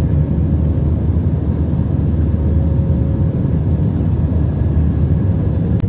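Jet airliner in flight heard from inside the cabin beside the wing: a steady, loud low rumble of the engines and rushing air, with a faint steady hum above it.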